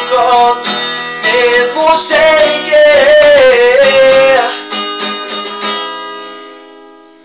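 Acoustic guitar strummed under a sung closing phrase. The singing stops a little over four seconds in and the final chord rings out, fading away over the last few seconds.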